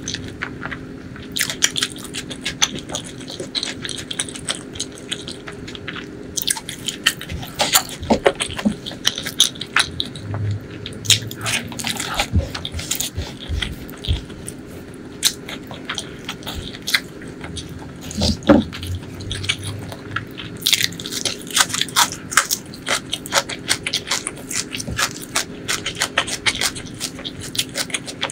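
Close-miked chewing of a mouthful of rice and curry, with wet mouth clicks and lip smacks coming thick and irregular, busiest in the last third, over a faint steady hum.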